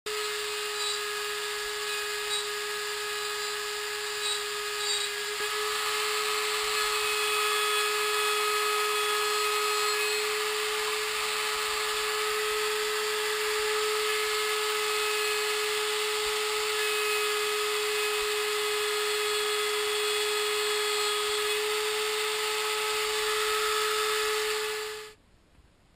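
Electric router mounted in a bench-top router table running with a steady high whine, cutting a channel along a thin strip of wood fed against the fence. The sound gets a little louder about five seconds in and cuts off suddenly near the end.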